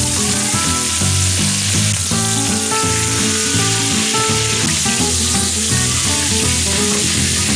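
Flour-dredged pork chops frying in hot oil in a cast-iron skillet: a steady, loud sizzle.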